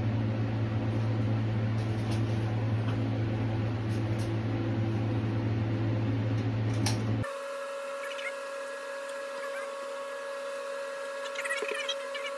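Steady low machine hum that cuts off abruptly about seven seconds in, giving way to a quieter, higher steady whine with a few faint clicks near the end.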